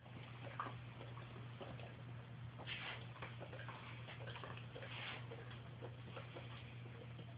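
A dog snuffling at close range: small irregular clicks and a few short breathy snuffles over a steady low hum.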